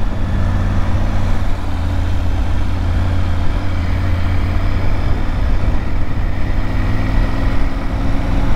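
Motorcycle engine running steadily as the bike rides along at low speed, heard from on the bike itself, with a constant low hum.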